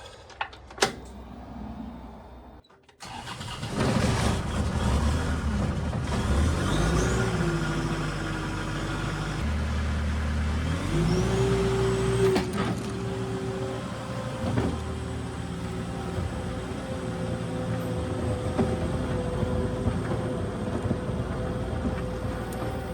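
New Holland LS170 skid steer's diesel engine, quiet at first, then running loud from about three seconds in. Its pitch rises and holds twice as it is throttled up and worked.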